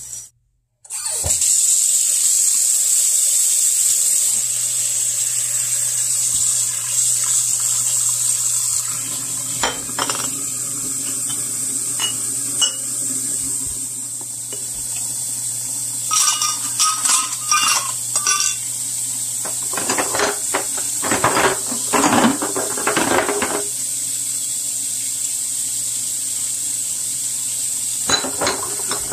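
Kitchen tap water running steadily into a porcelain sink as glass canning jars are rinsed. Glass jars clink and knock against each other and the sink now and then, in clusters through the second half.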